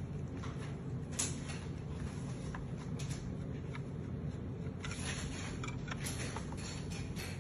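Hands handling and working the plastic leg parts of a transforming robot figure: scattered light clicks and rubbing, the sharpest click about a second in, over a steady low background hum.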